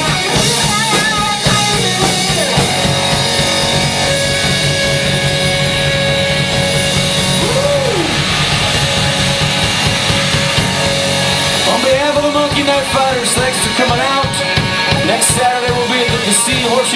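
Live rock band playing loudly: electric guitars, electric bass and a drum kit, with a long held note through the middle. Lead vocals come in about twelve seconds in.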